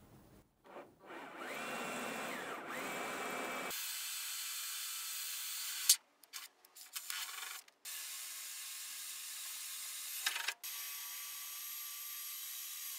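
Cordless drill boring into a rusty steel body panel. The motor whine rises and falls in speed at first, then runs steadily with a few brief stops in the second half.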